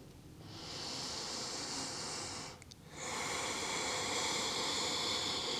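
A woman breathing slowly and audibly while holding a yoga pose. There is one breath of about two seconds, a short pause, then a longer breath of about three seconds.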